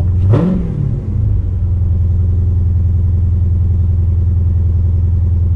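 Dodge Challenger engine idling, heard from inside the cabin, given one quick throttle blip near the start: the pitch rises and falls back to a steady idle within about a second, showing the throttle responds.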